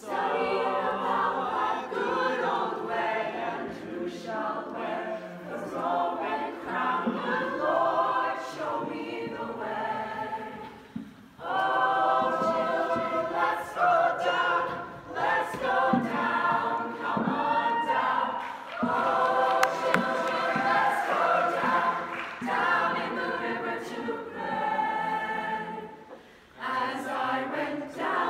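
Mixed high school show choir singing in harmony, with two short breaks, one about eleven seconds in and one near the end.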